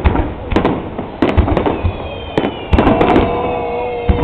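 Aerial fireworks shells bursting in quick succession, a series of sharp bangs several a second. Partway through, a steady held tone with a few overtones sounds under the bangs.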